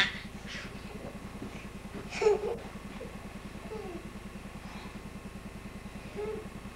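A few brief, short vocal sounds from small children over a steady low buzzing hum with a fast even pulse.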